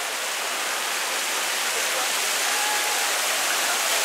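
Indoor terminal fountain: water jets and a cascade falling from the ceiling splash into the pool, a steady hiss of water.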